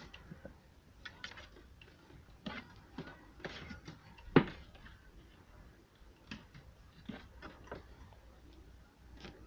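A bundle of loose wiring being gathered up by hand: light rustling with scattered small clicks and taps, and one sharper click about four seconds in.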